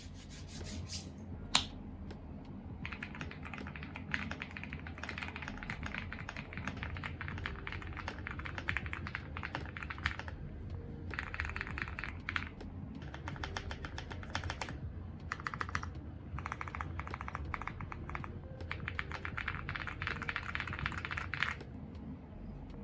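Typing on a Zuoya GMK67 mechanical keyboard with lubed KTT Kang White linear switches, a polycarbonate plate, PBT keycaps and foam and tape dampening. The keystrokes come in fast runs of several seconds, with short pauses between them.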